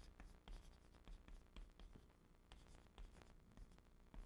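Chalk writing on a chalkboard: a quick, irregular run of faint taps and short scratches as characters are written stroke by stroke.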